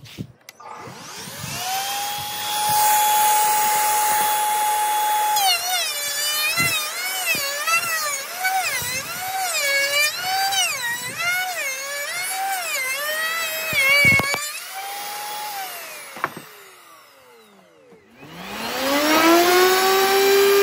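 Wood router with a tongue-and-groove cutter spinning up to a high, steady whine, then cutting a board: the pitch dips and recovers over and over as the wood is fed through, with a few knocks. The motor then winds down, and near the end a motor spins up again to a lower whine.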